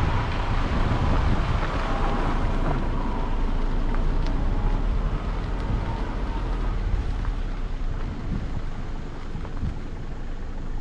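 A vehicle driving along an unpaved dirt track: a steady low rumble with wind buffeting the microphone.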